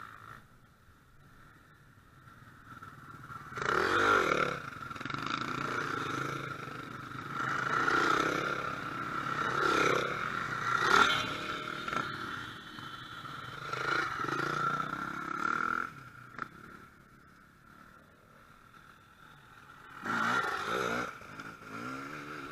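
A string of enduro dirt bikes riding past one after another, engines revving up and falling away with each pass. It is quiet at first, the first bike arrives about three and a half seconds in, there is a lull from about sixteen to twenty seconds, and then another bike comes through.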